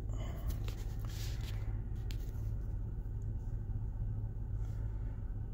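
Car engine idling, heard from inside the cabin as a steady low hum, with a few faint clicks of handling in the first couple of seconds.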